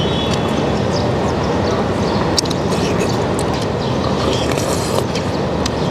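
Steady rumbling background noise, with small clicks and a short slurp about four and a half seconds in as a man eats wontons from a spoon.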